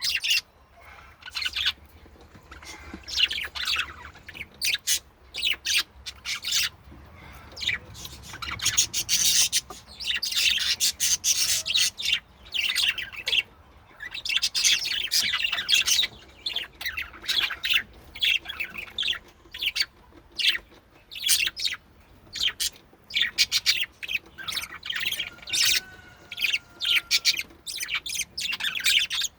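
Several budgies chirping and chattering: quick high chirps and warbling runs, with denser stretches of warble now and then.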